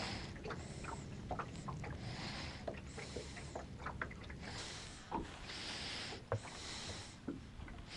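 Small boat drifting: water lapping against the hull, with scattered short clicks and soft hissing that comes and goes.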